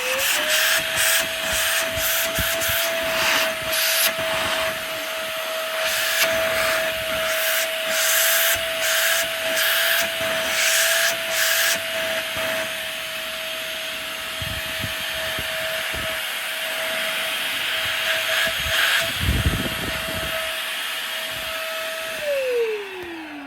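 Bossman cordless vacuum cleaner running with a steady high motor whine that steps up in pitch just after the start, with irregular scraping noises over the first half. Near the end it is switched off and the whine falls away as the motor spins down.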